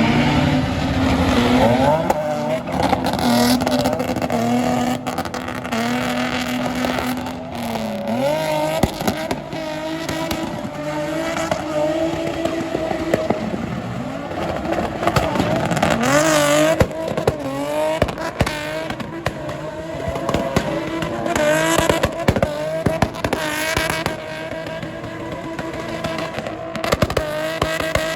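Race car engine running hard, its pitch rising and falling again and again as it revs up and down.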